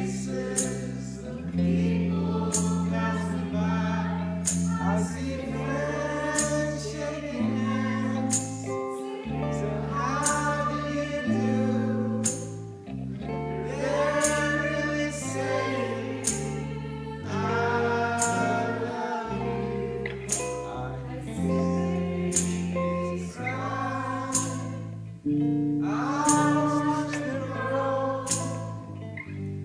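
Live song played on electric bass and acoustic guitar, with singing over it. The bass holds notes that change about once a second under strummed chords.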